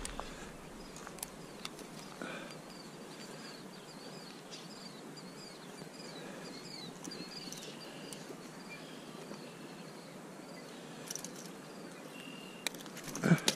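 Faint outdoor ambience with a high, thin chirping call repeating for several seconds in the background. A few light clicks and taps, sharper near the end.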